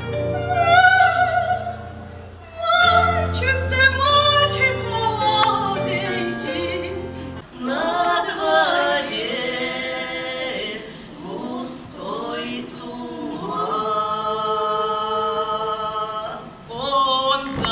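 Women's folk ensemble singing unaccompanied in close harmony, with long held chords near the end. For the first seven seconds or so the singing runs over a low steady drone accompaniment, which stops abruptly.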